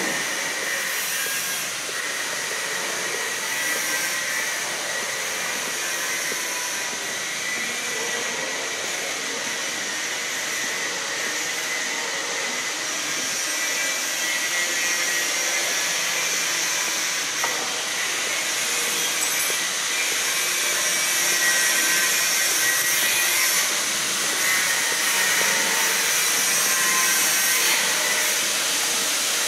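Steady background hiss with no clear events, most of it high-pitched, growing a little louder in the second half.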